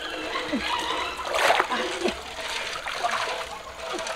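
Shallow river water splashing and sloshing around a person wading through it while pulling a large metal wok, with one bigger splash about a second and a half in.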